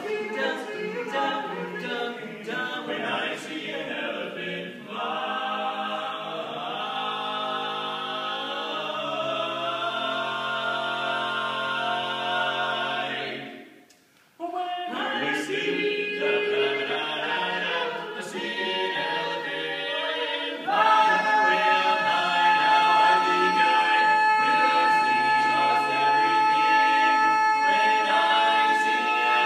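Male barbershop quartet singing a cappella in close four-part harmony. The singing stops for about a second halfway through, then comes back and swells into a loud, long held chord near the end.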